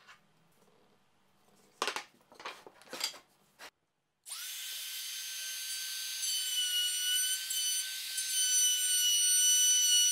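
A few short scratching strokes of a pencil tracing around a plastic circle template on plywood, then a compact router running with a steady high whine as its bit cuts into plywood, growing louder toward the end.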